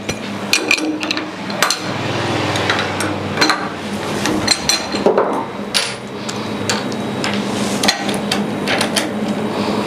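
Irregular knocks and taps, a few each second, over a steady low hum.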